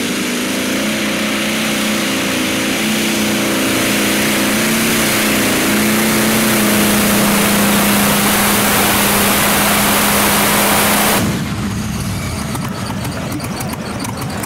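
Light modified pulling tractor's engine running at full power under the load of a pulling sled, a loud steady howl with a hiss that swells over several seconds. About eleven seconds in it cuts off abruptly, and a lower, rougher engine sound follows.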